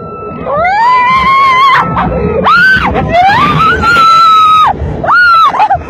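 People screaming on an amusement park ride: several long, high screams that rise and fall, one after another.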